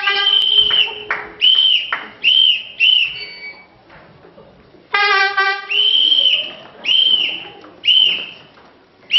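Loud whistle blasts in two sets. Each set is a short horn-like honk, then a long whistle blast and two or three short ones, each rising and falling in pitch. The second set starts about five seconds in.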